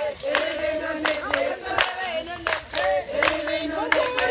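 A group of women singing together, with steady hand claps about twice a second.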